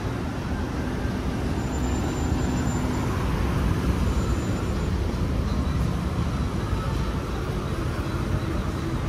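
Steady road traffic noise of passing vehicles.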